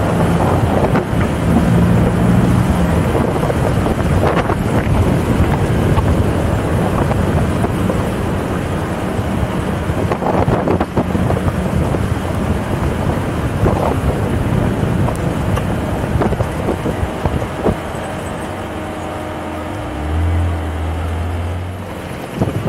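Jeep engine running as it crawls over rough ground, with wind buffeting the microphone and scattered knocks. A steadier low hum comes in near the end.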